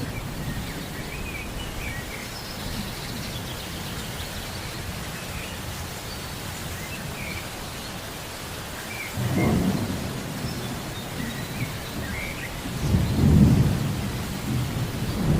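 Steady rain with rumbles of thunder: a low roll about nine seconds in, a louder one about thirteen seconds in, and another building at the end. Small birds chirp faintly throughout.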